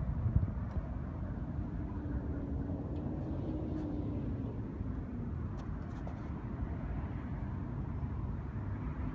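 Steady low rumble of city road traffic, with a vehicle's engine hum briefly standing out a few seconds in.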